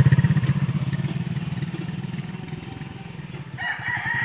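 Small motorcycle engine running and fading as it rides away. About three and a half seconds in, a drawn-out high call rises over it.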